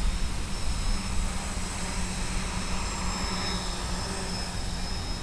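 Electric motor and propeller of a small RC aircraft in flight under steady throttle: a constant drone with a thin high whine over hiss.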